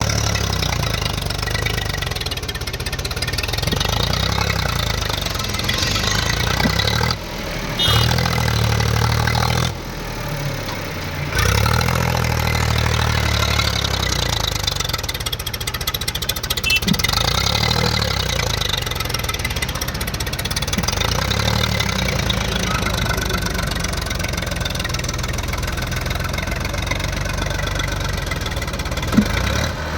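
Diesel tractor engine running with a steady low chugging note, changing abruptly several times in the first dozen seconds. There is a short sharp knock near the end.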